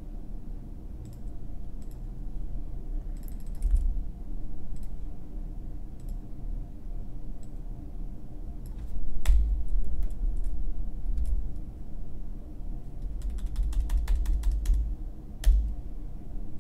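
Computer keyboard and mouse clicks: scattered single clicks, then a quick run of keystrokes near the end, with dull low thuds under some of them.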